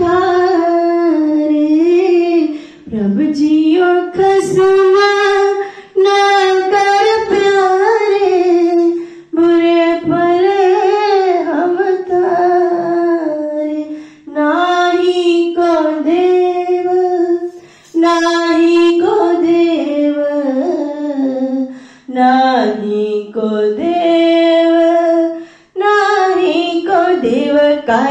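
A woman singing a Gurbani shabad (Sikh hymn) in a single melodic voice, in phrases of about three to four seconds with short breaths between them.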